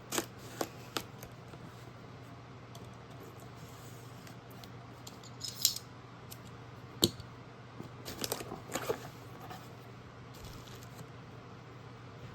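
Scattered clicks, scrapes and rustling as a shipping package is cut open and its contents are handled, with one sharp click about seven seconds in and a busier stretch of handling soon after. A steady low hum runs underneath.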